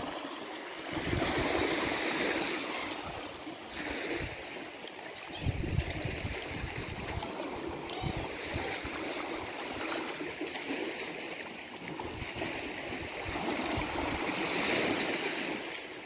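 Small sea waves washing up over a pebble shore and draining back, swelling and easing every few seconds.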